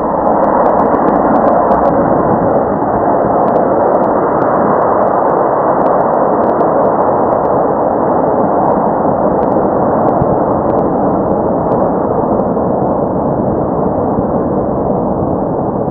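A loud, steady, muffled roar that starts suddenly and runs on unbroken, with faint crackles over it.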